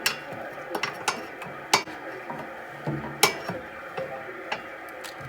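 Irregular sharp metallic clicks and knocks, about six in five seconds, over a steady low hum. They come from around the right front wheel of a Honda Elysion as the steering is turned at a standstill: metal rubbing and catching on metal, a fault the owner traced to a part with play in it.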